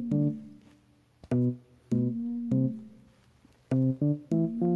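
Background music: short keyboard notes played in quick runs, with brief pauses between the runs.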